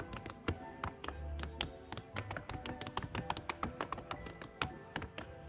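Tap shoes striking the stage floor in quick, rhythmic clicks over the backing music.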